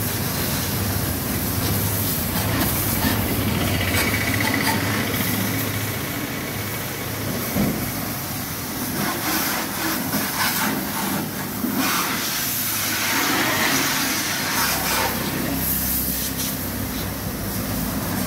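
Water spraying from a washer hose onto a van's wheel and body, a steady hiss over a low, steady machine hum.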